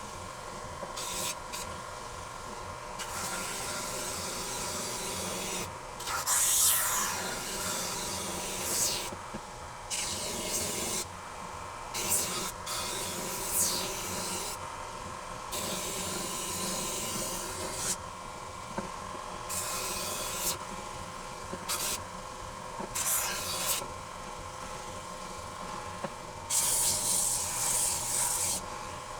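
Oscillating belt sander running with a steady motor hum while a small wooden piece is pressed against the belt in repeated short passes, each pass a burst of hissing sanding, to round over its square corners.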